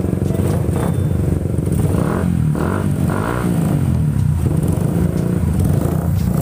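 Several motorcycle engines running together and being revved, the pitch climbing and falling a few times about two to four seconds in.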